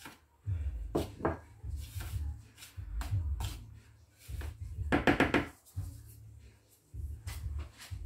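Gloved hand stirring and rubbing dry semolina and flour in a plastic bowl, with dull bumps and a few sharp knocks of spoon and cup against the bowl and board. A short pitched squeak comes about five seconds in.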